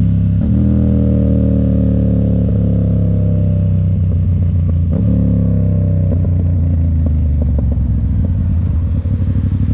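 Yamaha FZ-07's 689 cc parallel-twin engine under way, climbing in pitch as it accelerates, with upshifts about half a second in and about five seconds in. After that the revs level off, and near the end it drops to a low, lumpy, pulsing beat.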